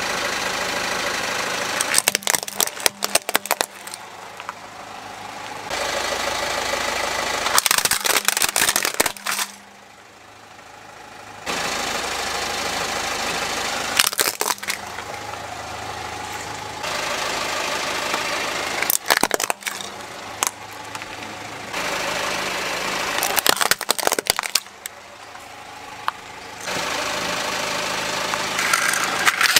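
Plastic toy vehicles cracking and snapping as a car's tyre rolls over them, about six times in succession, with the car's engine running steadily between the crushes.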